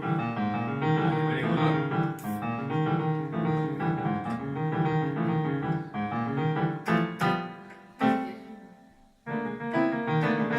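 Electronic keyboard played in a piano voice, a run of chords and melody notes. About eight seconds in a note is struck and left to die away into a short pause, then the playing starts again.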